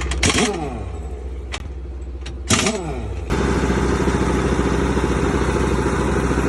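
Air impact wrench giving two short bursts that spin down in pitch, then running steadily from about three seconds in, over the low hum of an idling engine.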